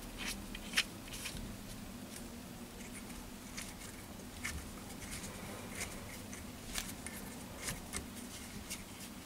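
Faint, irregular small metallic clicks and light scrapes as stainless steel socket-head cap screws are turned in by hand, fastening a steel backplate to a four-jaw lathe chuck. A steady low hum runs underneath.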